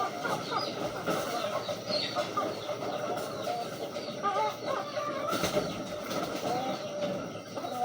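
Many racing pigeons in a loft calling at once, with overlapping short wavering coos and the occasional brief flap of wings.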